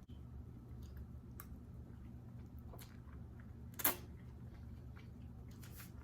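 Steady low hum with a few faint scattered clicks and one sharper click about four seconds in.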